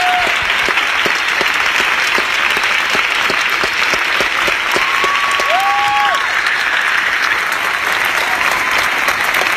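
Audience applauding loudly and steadily, with a couple of long, held cheers rising above the clapping about five seconds in.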